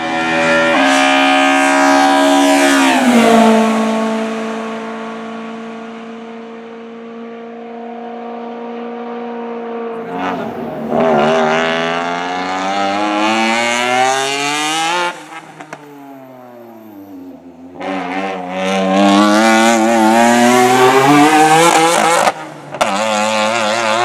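Hill-climb race car engines at full throttle, one car after another. First a car passes close and fades as it climbs away. About ten seconds in, another accelerates hard with its pitch rising through the gears. From about eighteen seconds the #46 Maserati Ghibli race car revs high past the camera, with a brief sharp break near the end.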